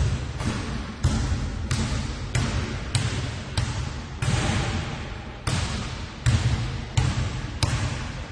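A basketball dribbled by one player: a steady run of sharp bounces about every two-thirds of a second, each trailing off in an echo, with one longer gap in the middle.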